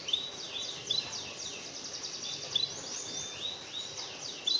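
Bird song from a canary masteran (training) recording: quick whistled notes that swoop up and down, repeated several times a second in runs, over a constant high, fast twittering chatter.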